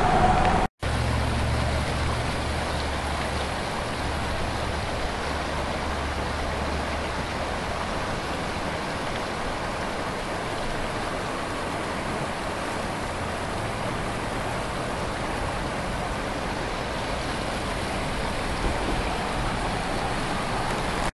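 High, fast-flowing river water rushing steadily past a half-submerged low-water bridge, with a low rumble under it in the first few seconds.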